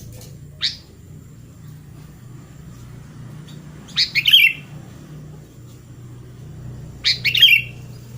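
Sooty-headed bulbul singing: one short call shortly after the start, then two brief phrases of quick notes about three seconds apart.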